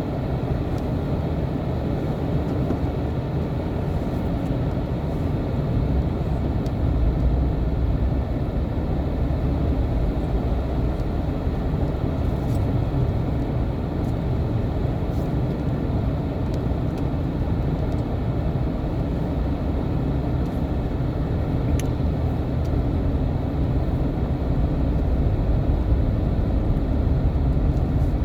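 A vehicle engine running steadily, its sound mostly low-pitched, with no break or change in speed.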